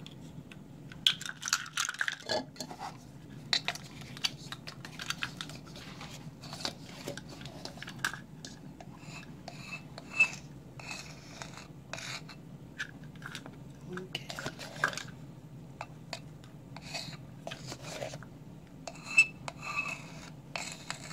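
Small whisk and plastic measuring spoon tapping and scraping against a ceramic mixing bowl and a metal baking powder can while dry cornbread ingredients are whisked and measured. Irregular clicks and scrapes, with a few sharper taps about a second in, around the middle and near the end.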